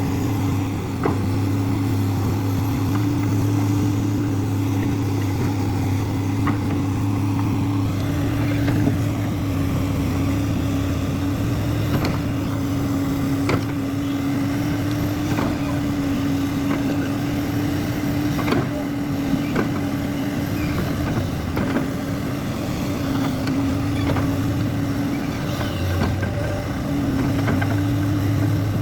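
A JCB excavator's diesel engine running at a steady, even speed, with occasional sharp clicks and knocks from the machine every second or few.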